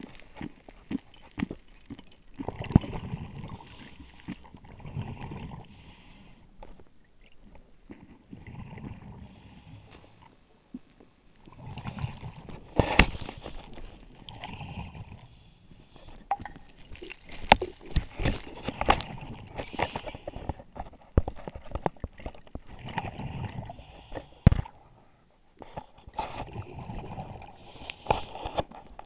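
Underwater sound of a scuba dive: bursts of bubbling from the diver's regulator exhaust every few seconds, with scattered clicks and knocks of the camera housing against the gravel riverbed and one sharper knock near the end.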